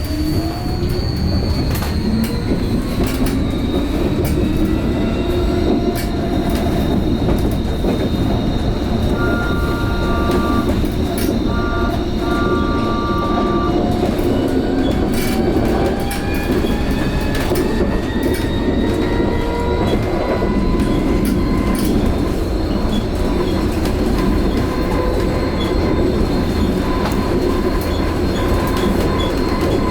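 Vossloh Tramlink tram under way: wheels rumbling on the rails with occasional clicks, and the electric drive whining higher and higher as the tram picks up speed, levelling off about twenty seconds in. A short two-tone beeping sounds about ten seconds in.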